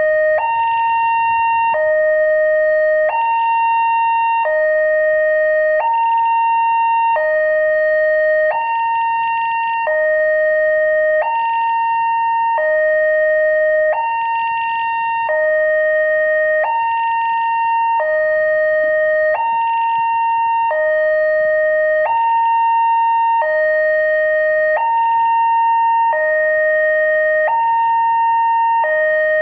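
Railway level-crossing warning siren sounding a two-tone alternation, a higher and a lower tone each held about a second and a half and repeating evenly, over a constant high note. This is the crossing's warning that a train is approaching.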